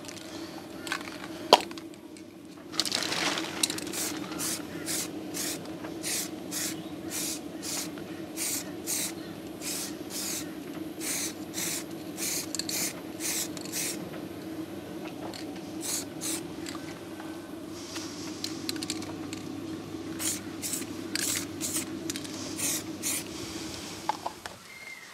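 Aerosol spray can hissing in many short squirts, about two to three a second, in runs separated by pauses, over the steady hum of a clothes dryer running.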